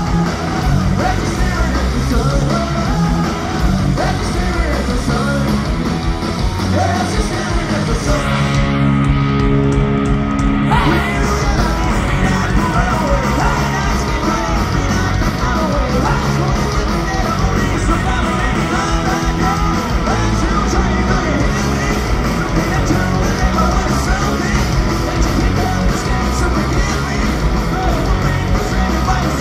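A punk rock band playing live and loud: electric guitars, bass and drums, with a sung and shouted lead vocal. Recorded from the audience at the concert. About nine seconds in, the high end briefly drops away and held low notes ring out before the full band comes back.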